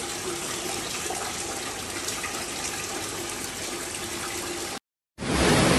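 Rainwater leaking through a ceiling, pouring in thin streams and splashing steadily into a metal pot. It cuts off abruptly near the end, and a louder, steady rush of water follows.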